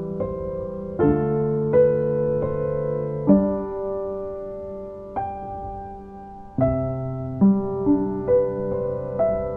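Slow background piano music, notes and chords struck about once a second and left to ring.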